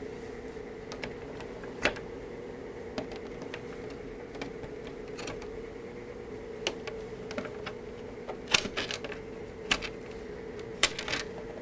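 Light clicks and knocks from a Traxxas Stampede RC truck being handled. They are scattered at first and bunch into quick clusters in the last few seconds, over a steady low hum.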